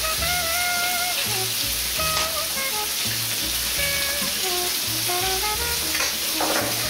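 Chicken thighs frying skin side down in hot olive oil in a pan, a steady sizzle, with background music of a plucked melody and bass notes over it.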